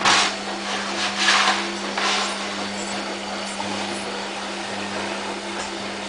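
Front-loading washing machine running through a wash cycle: a steady motor hum, with a few louder swishes of water and laundry in the turning drum in the first two seconds.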